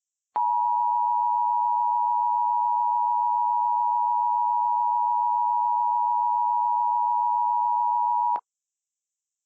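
Emergency Alert System attention signal: a steady, unwavering alert tone held for about eight seconds, then cut off sharply.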